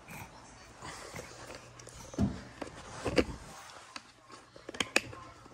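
Scattered soft thumps and rustling from scuffling with a baby on carpet and from handling of the camera, the loudest thumps about two and three seconds in, with a few sharp clicks near the end.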